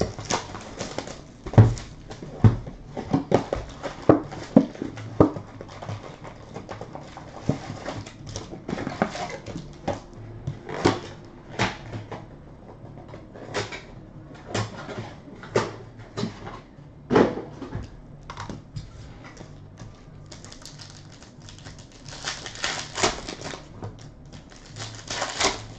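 A box of trading cards being opened and its packs and cards handled by hand on a table: irregular clicks and taps of cardboard and cards set down, with stretches of wrapper crinkling near the end.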